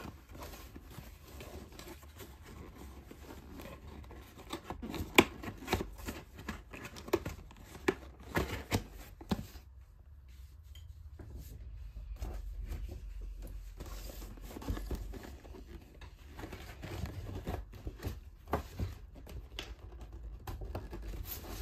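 Hands handling a cardboard kit box and its paper contents as the box is closed: a run of light taps, scrapes and rustles, with a sharper knock about five seconds in and a calmer stretch in the middle.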